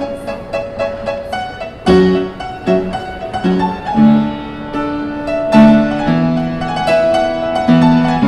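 Instrumental background music: a run of quick high notes, with lower held chords coming in about two seconds in.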